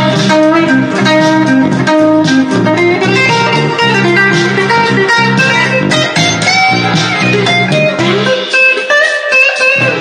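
Guitar music, plucked notes over a low bass line; the bass drops out about eight and a half seconds in, leaving the higher guitar notes.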